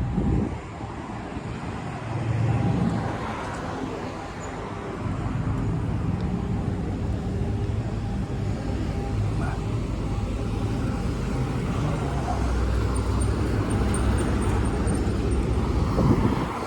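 Road vehicle noise: a steady low rumble of a car moving, swelling briefly a couple of seconds in and again near the end.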